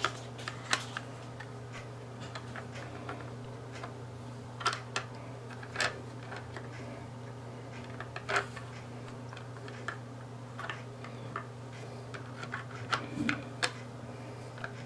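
Irregular small clicks and taps from small parts and a screwdriver being handled, a few of them sharper than the rest, over a steady low hum.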